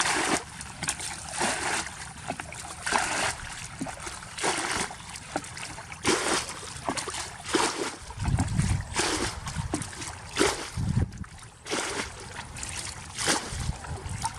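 Water splashing and trickling in short, irregular bursts, with deeper low rumbles twice midway.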